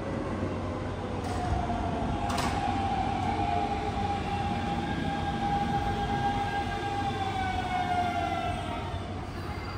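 Electric train running through the station: a steady electric motor whine over wheel and track rumble, with one sharp clank about two and a half seconds in. The whine drops in pitch and fades near the end.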